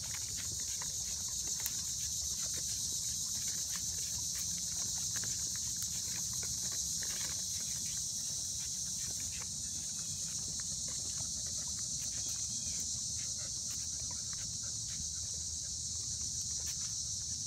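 Dalmatian walking in a dog wheelchair on pavement: many light irregular taps of paws and steps, with the dog panting, over a steady high-pitched hiss.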